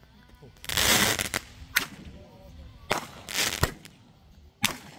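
Aerial fireworks firing one shot after another: rushing hisses as shells launch, and three sharp bangs in the second half.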